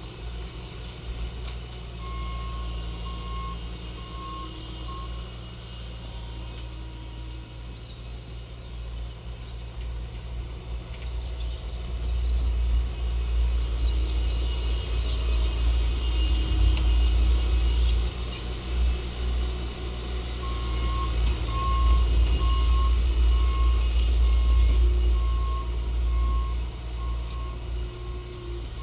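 Bobcat T870 compact track loader's diesel engine running, growing louder through the middle of the stretch as it works. Its backup alarm beeps steadily, a few beeps a second, briefly near the start and again through the last several seconds as it reverses.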